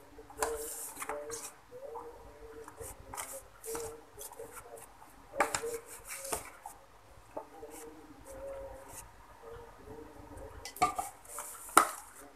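Shredded cabbage, carrot and scallions being mixed by hand with flour and water into a batter in a plastic container: irregular squishing and rustling with small clicks and knocks against the container, a louder knock about five and a half seconds in and another near the end.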